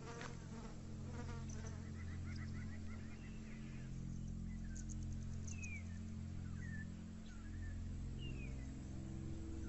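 Bush ambience of insects buzzing and chirping, with a few short falling bird whistles from about halfway through to near the end, over a low steady hum.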